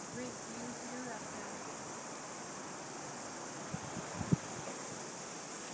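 Insects chirping outdoors in a rapid, steady, high-pitched pulsing, over a soft background hiss.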